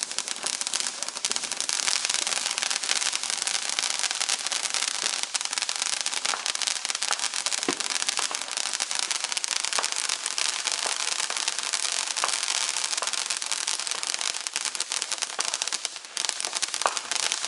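Ground fountain firework spraying sparks: a steady hiss with dense crackling, dipping briefly near the end.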